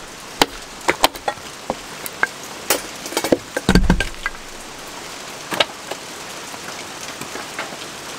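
A wooden baton knocking on the spine of a Jeo-Tec 29 fixed-blade knife as it is driven through sticks of wood to split them. The knocks are sharp and irregular, with a heavier thump about four seconds in, over steady rain.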